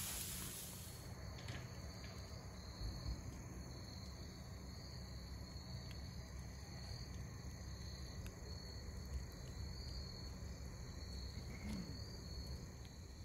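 Insects, crickets or the like, chirping steadily in slow, even pulses, with a few faint crackles from a wood campfire.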